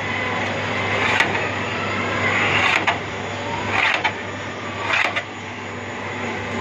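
Metal spatulas scraping against each other and across the steel cold plate of a rolled ice cream counter, in several short scrapes about a second apart, over a steady machine hum.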